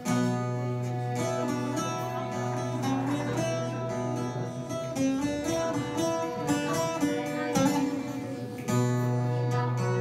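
Violin and long-necked bağlama (saz) playing a melody together, the saz plucked and the violin bowed over a low held drone. The music comes in strongly right at the start, and the drone drops out for about a second near 8 s before returning.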